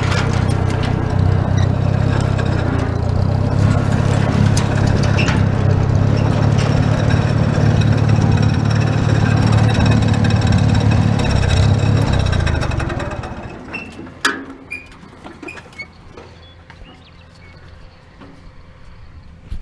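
Tractor engine running steadily with a low drone, then shut off about thirteen seconds in. A few clicks and knocks follow in the quiet.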